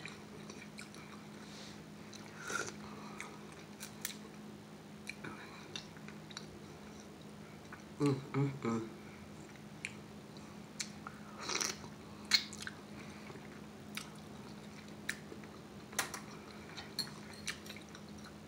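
Close-up eating of mussels and ramen: intermittent chewing and mouth smacks, with scattered short clicks as the mussel shells and fork are handled.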